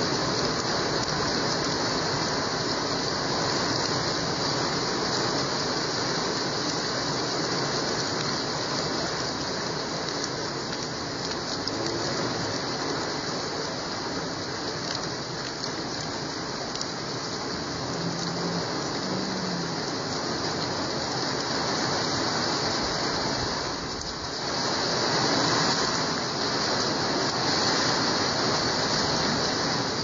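Heavy rain falling steadily, swelling louder for a few seconds near the end.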